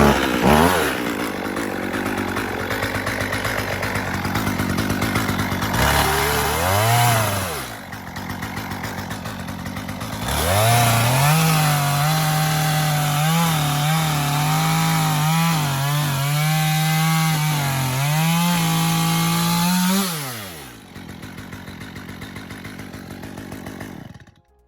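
Chainsaw engine running, revved briefly about six seconds in, then held at high revs for about ten seconds while cutting through a Nike Air VaporMax shoe. It drops back to idle and cuts off near the end.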